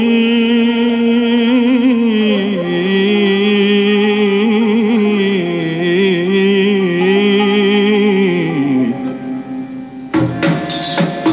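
A male singer drawing out one long ornamented, wavering note of an Arabic religious nasheed, stepping down in pitch and fading about nine seconds in. Near the end percussion beats come in, with drum and tambourine.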